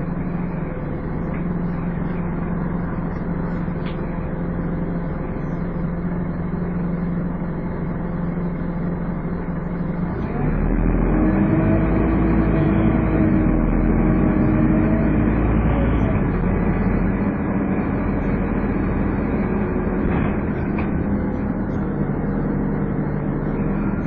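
Scania N230UD double-decker bus's five-cylinder diesel engine running with its typical hoover-like whine. About halfway through it gets louder under acceleration, with a steady whine over the engine note, then eases back.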